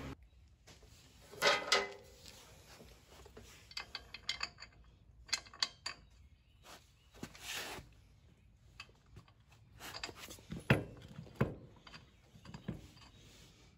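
Steel tire chain on a garden tractor's rear tire clinking and rattling in short, irregular bursts as its links are handled and pulled tight, with a few sharper knocks.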